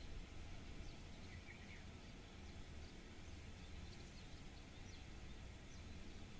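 Faint outdoor ambience: a steady low rumble with a few faint high bird chirps, once about a second in and a few more around the middle.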